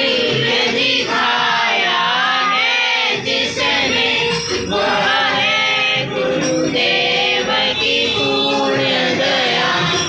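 A devotional prayer song sung by a group of voices with musical accompaniment, the melody gliding and holding notes.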